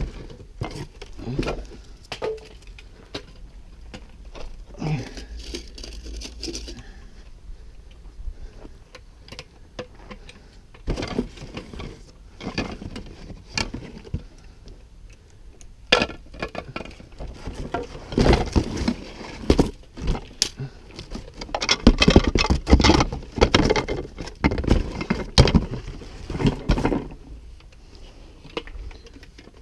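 Black ABS plastic pipe fittings being handled, taken from a cardboard box and set down on rocks: a run of short, hollow plastic knocks and clatters, busiest in the second half.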